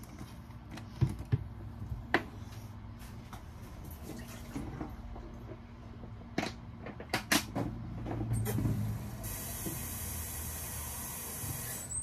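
A few sharp knocks and clatters of things being handled, then a water tap running in a steady hiss for the last three seconds or so, shut off sharply just at the end.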